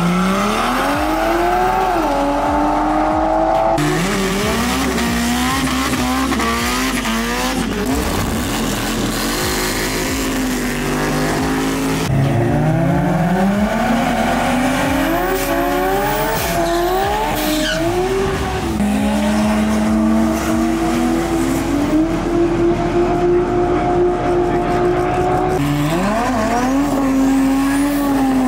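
Drag-racing car engines at full throttle in a run of short clips, the pitch climbing and dropping back with each gear change. In one longer stretch the engine holds steady high revs.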